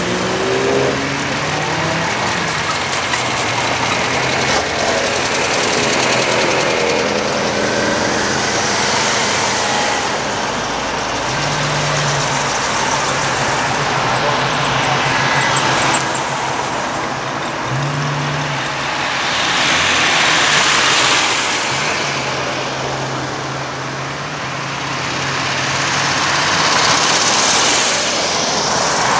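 Classic cars driving past one after another at low speed, engines running and tyres on asphalt, the sound swelling as each car goes by.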